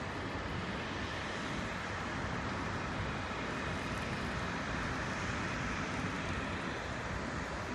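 Jet aircraft engines running at a distance: a steady, even rush of noise that holds the same level throughout.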